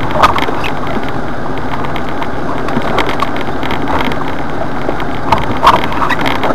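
Jeep Wrangler driving over a rough, rocky dirt trail, heard from inside the cab: a steady rumble of engine and tyres, broken by several short knocks and rattles.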